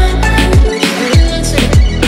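Electronic backing music with a steady kick-drum beat and synth tones; the bass drops out briefly just under a second in, then the beat comes back.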